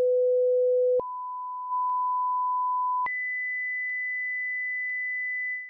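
Hearing-test tones from the HTC 10's Personal Audio Profile setup: a steady pure tone that jumps up in pitch about a second in and again about three seconds in, each step roughly an octave higher. Its volume steps up once, a little after the first jump. These are the low- and middle-frequency test tones for the left ear, set just loud enough to be heard faintly.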